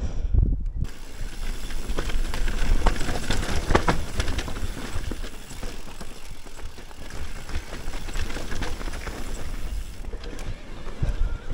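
Mountain bike riding down a rough trail: tyres rolling over dirt and rocks with a steady run of clicks and rattles from the bike. Wind buffets the action-camera microphone, most at the start and near the end.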